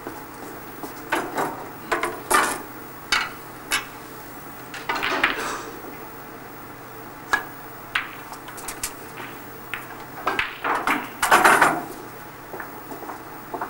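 Snooker balls clicking: a cue tip striking the cue ball and balls knocking against one another, a dozen or so sharp knocks spread unevenly, with a denser run of knocks about ten to twelve seconds in.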